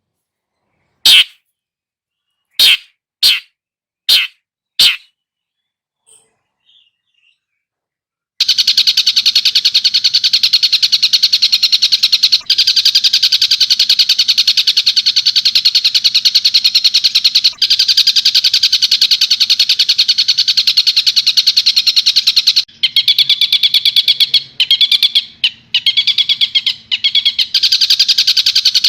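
Tengkek buto kingfisher calls from a masteran song-training track. About five sharp, loud single calls come in the first five seconds, then a pause. From about eight seconds in, a long, fast, unbroken chattering trill runs on and breaks into shorter bursts near the end.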